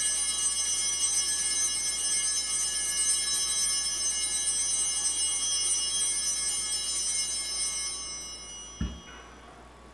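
Altar bells rung without a break at the elevation of the chalice, a steady shimmering ring of many high tones that fades out about nine seconds in. A short soft thump comes near the end.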